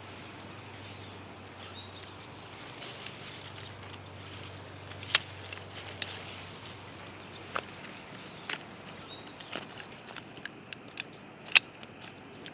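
Outdoor garden ambience with a steady high-pitched insect drone that stops about seven seconds in. Sharp single clicks come every second or so from about five seconds on.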